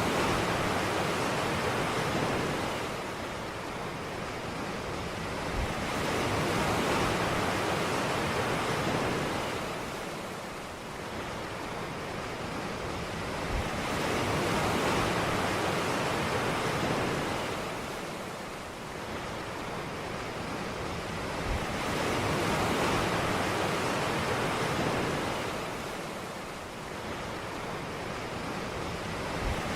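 Ocean waves breaking and washing up a beach, the surf swelling and falling back about four times.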